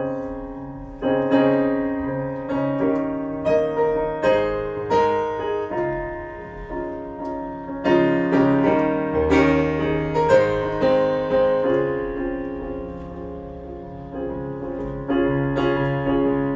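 Piano playing an instrumental passage: chords struck one after another, each ringing and dying away, with no singing.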